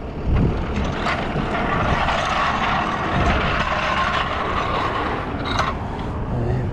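Highway traffic passing close by on the turnpike: a rush of tire and engine noise that swells after about a second and fades away near the end.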